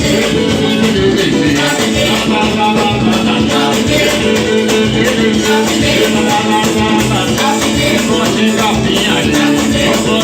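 Samba music playing loudly and continuously, with sustained pitched instruments over shaker-like percussion.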